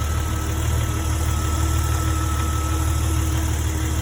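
A 2004 Jeep Grand Cherokee's 4.0-litre inline-six idling steadily and quietly, just started on fresh oil so that the new filter fills. The owner judges it sounds good.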